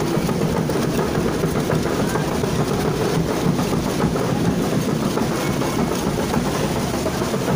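Steady, loud din of a street parade: a dense clatter over a low rumble, with no break.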